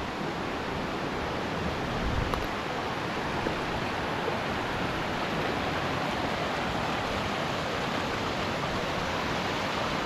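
A large waterfall rushing steadily: an even, unbroken noise of falling water.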